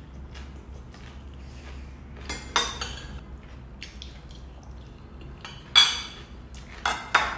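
Metal forks clinking and scraping against ceramic dinner plates, with a few sharp clinks about two and a half seconds in, the loudest near six seconds, and two more near the end.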